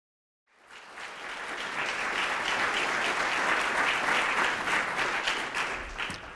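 Audience applauding: the clapping comes in about half a second in, builds to a steady level, and dies away near the end.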